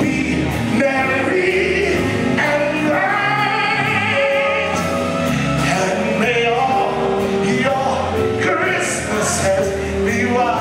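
Live gospel music: a singer with wide vibrato and backing voices over a band with a steady bass line.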